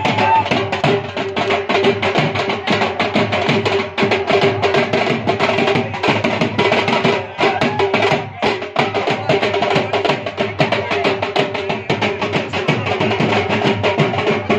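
Dhol and band drums beaten in a fast, steady rhythm for dancing, with a steady held tone above the beat.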